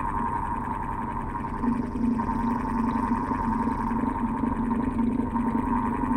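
Old electric fan running continuously, a steady hum with a wavering, slightly pulsing tone.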